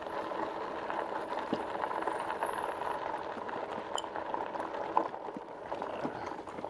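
RadRover electric fat-tyre bike riding over a gravel dirt road: tyres crunching on the gravel, with small rattles and clicks from the bike.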